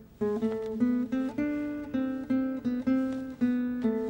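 Background score: a plucked acoustic guitar picking a slow melody of single notes, about three a second, each note ringing and fading.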